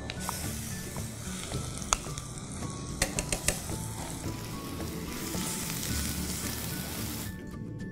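Wet ground masala paste and onions frying in hot oil in a pan, a steady sizzle. A few sharp clicks of a utensil against the pan come about two seconds in and again around three seconds in, and the sizzle dies down near the end.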